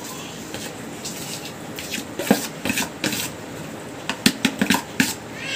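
Steel spoon scooping flour and knocking against a plastic bowl and a steel mixing bowl. After a quiet first couple of seconds come a run of short, sharp taps and clicks, thickest near the end.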